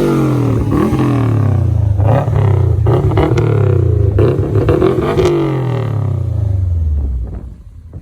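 Subaru WRX STi's turbocharged flat-four engine pulling hard in a drag run. The engine note climbs and drops several times, then falls away sharply about seven seconds in.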